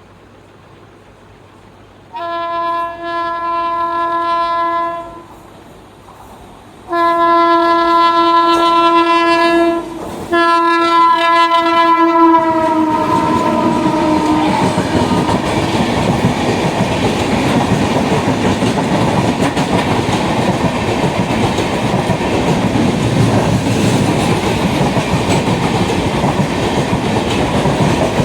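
Locomotive air horn sounding three long blasts, the third sliding slightly down in pitch as the train comes by, then the train running past at speed with loud rushing noise and wheel clatter on the rails.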